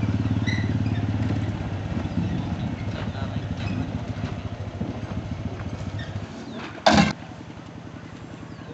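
Quad bike (ATV) engine running as it drives away towing a trailer, slowly fading. A brief loud burst of noise about seven seconds in, then a quieter steady engine running.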